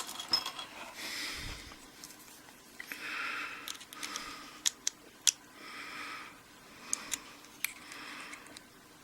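Small metal tool working a retaining clip off the back of a padlock's lock cylinder: soft scraping with a few sharp small metallic clicks in the middle and near the end.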